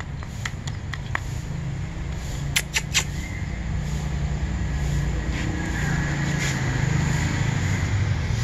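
Cats chewing wet cat food, with small sharp clicks and smacks, over a low steady rumble that grows louder after the middle.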